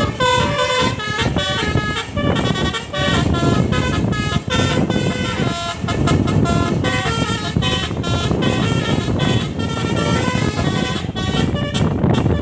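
Tour bus telolet musical air horn, a set of trumpets playing a Minang tune as a run of short held notes stepping up and down in pitch.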